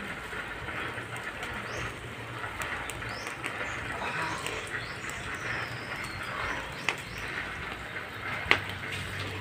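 Open wood fire crackling, with a few sharp pops, the loudest near the end, under a whole pig roasting on a spit. Birds chirp in the background over a steady low hum.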